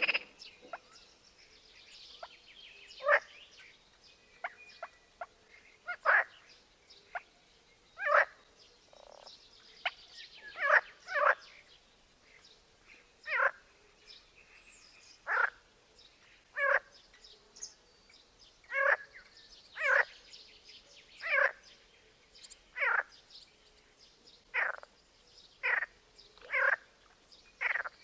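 Frogs croaking: short calls repeated every second or two, with faint high bird chirps in between.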